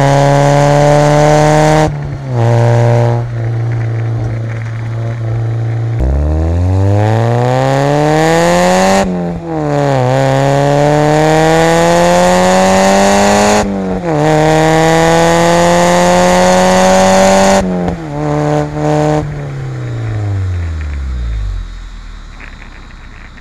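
1996 Mazda Miata's 1.8-litre four-cylinder engine and exhaust pulling hard. The revs climb and drop back sharply several times, then wind down to a low, quieter note near the end.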